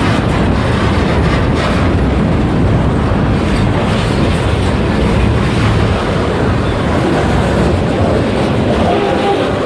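Freight train rolling past at close range: a loud, steady rumble of wheels on the rails.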